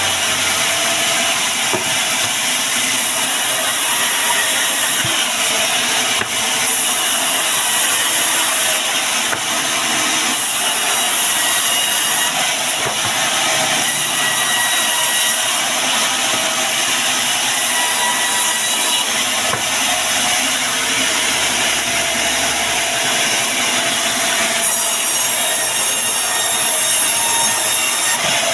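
Band sawmill cutting through wood: a loud, steady sawing noise that runs on without a break.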